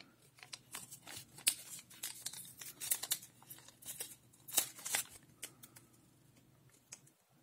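A plastic-model kit's decal sheet and its paper cover crinkling and rustling as fingers flex and turn them: a quick, irregular run of small crackles that dies away about six seconds in.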